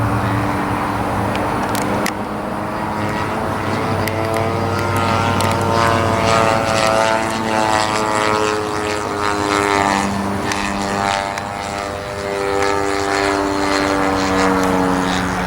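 The 50cc gas engine and propeller of an RC model airplane running, its pitch rising and falling in slow sweeps.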